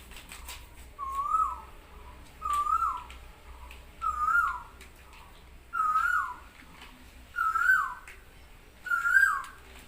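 A bird calling over and over: six short whistled notes, each rising then falling, about every second and a half, edging slightly higher in pitch as they go.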